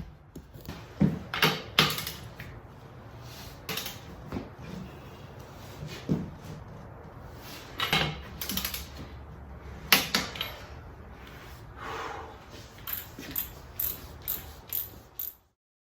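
Ratcheting torque wrench clicking as the beadlock ring bolts are tightened, with scattered sharp metal clicks and clinks. A quick run of clicks comes near the end, then the sound cuts off suddenly.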